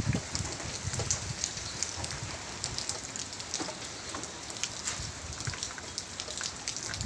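Steady typhoon rain falling on the ground, roofs and leaves, with many small scattered drop ticks.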